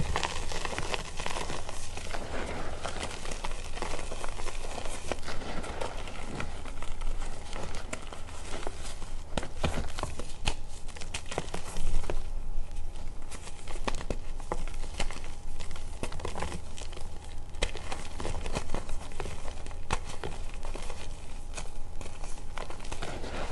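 Reformed gym chalk chunks crushed and crumbled between the fingers over a heap of loose powder: a continuous run of soft crunches and crackles, with many small sharp snaps and the loudest crunch about halfway through.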